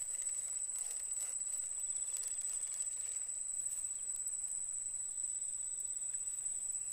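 Insects calling in one unbroken, steady high-pitched tone, with a few faint clicks.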